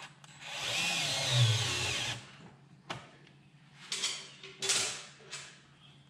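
DeWalt gyroscopic cordless screwdriver running for about two seconds, driving a screw into the plastic vacuum tank, its motor pitch wavering as it goes. A few short clicks and knocks follow.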